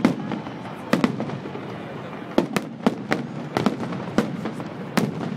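Fireworks salute: shells bursting in a string of sharp bangs, about a dozen at uneven intervals, some in quick pairs.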